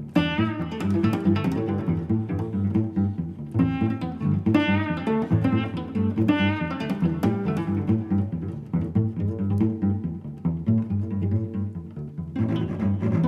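Background music: bowed and plucked low strings, cello or double bass, with pizzicato notes and a steady pulse.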